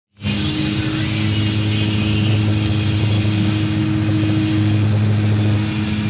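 Backhoe dredge's engine and machinery running with a steady, low droning hum, heard from inside the operator's cab.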